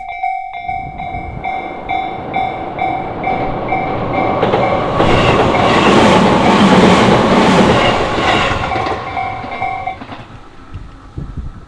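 Japanese level-crossing warning bell ringing in a steady repeated beat while a Tobu Nikko Line electric train runs over the crossing, the wheel clatter swelling to its loudest about halfway through and fading. The bell stops about ten seconds in.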